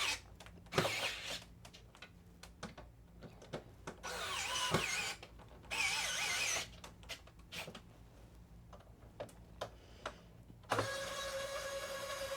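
Small electric screwdriver motor whining in two short runs, about a second each, while screws are driven, with light clicks of handling between. Near the end it starts a steady, continuous run.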